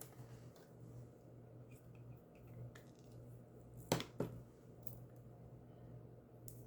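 Quiet handling of a paper card and twine while a glue dot is pressed into place, with two sharp clicks about four seconds in, over a steady low hum.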